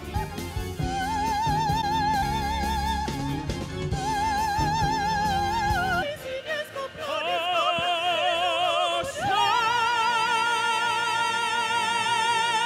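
Operatic duet: a male and a female voice singing with wide vibrato. For the first six seconds a band with drums plays under them. After that the voices carry on unaccompanied and finish together on a long high note.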